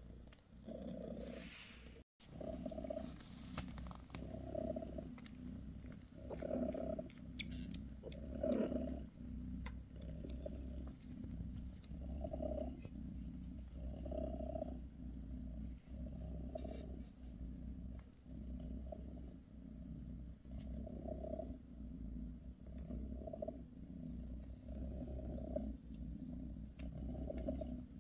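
British Shorthair mother cat purring steadily while her newborn kittens nurse. The purr swells and eases with each breath, roughly once every second or so, and breaks off for an instant about two seconds in.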